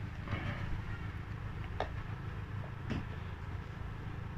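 A few light clicks and a soft rustle from handling a plastic measuring jug and a bottle of cooking oil while the oil is poured, over a steady low background hum.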